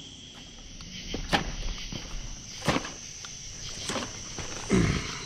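Footsteps of people walking in the dark, a step every second or so, over a steady high chirring of night insects. A short low sound comes near the end.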